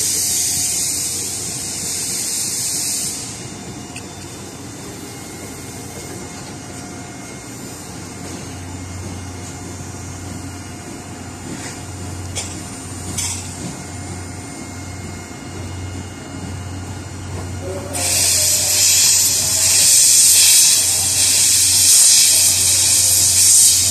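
C11 steam locomotive pulling away, steam hissing loudly from its cylinder drain cocks from about three quarters of the way through, over a low rhythmic pulsing. Before that a quieter low rumble, and a loud hiss at the very start that stops after about three seconds.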